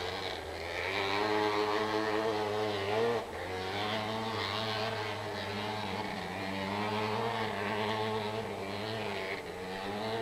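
Kawasaki KX500 two-stroke dirt bike engine working hard up a steep cinder hill climb, its pitch rising and falling with the throttle. The note drops briefly about three seconds in.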